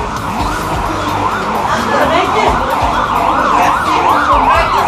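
Electronic siren in a fast yelp: its pitch sweeps up and down two or three times a second, starts faintly about a second in and grows louder.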